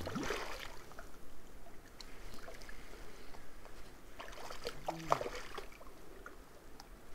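Spinning reel being cranked steadily as a lure is retrieved: a soft, low-level whirr with faint ticks, over light water noise at the shore.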